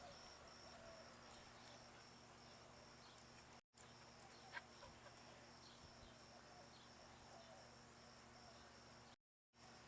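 Faint, steady high-pitched chirring of insects, crickets by their trill. It drops out to silence twice, briefly.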